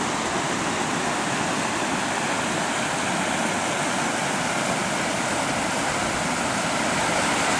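Floodwater rushing over and through culverts under a road: a steady loud rush of running water.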